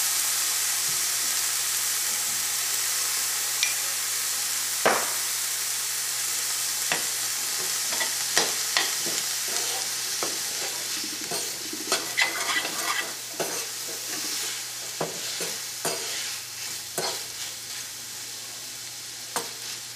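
Green peas and tomato-onion masala sizzling in oil in a stainless steel pan, a steady hiss. A sharp click about five seconds in, then from about eight seconds on a spatula scrapes and clicks against the pan as the mix is stirred, more often toward the end.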